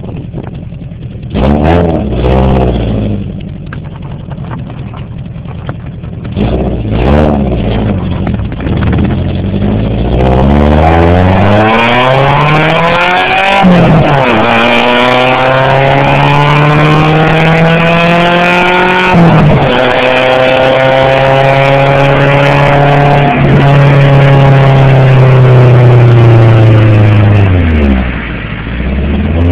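1998 Chevy Metro's 1.3-litre four-cylinder engine through a SuperTrapp exhaust, under way on the road. After a quiet stretch with two short revs, it accelerates hard, its note climbing and dropping at upshifts about fourteen and nineteen seconds in, then holds a steady, slowly falling note before dipping near the end and climbing again.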